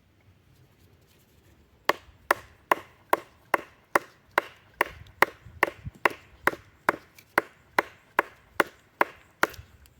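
Wooden baton striking the spine of a bushcraft knife, driving the blade down through a piece of wood. It strikes in a steady rhythm, a little over two knocks a second, starting about two seconds in.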